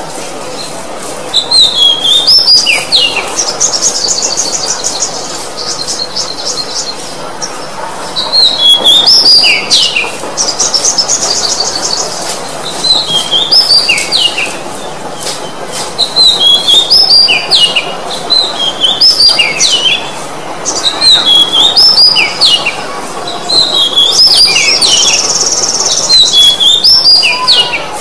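Oriental magpie-robin (kacer) singing: loud phrases of sweeping, slurred whistled notes, repeated every few seconds with short pauses between. Several phrases include a fast, high trill.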